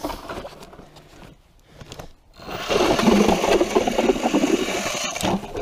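Battery-powered electric ice auger drilling into lake ice: the motor runs under load with the grinding of the blades cutting ice, starting about two and a half seconds in and cutting off abruptly near the end.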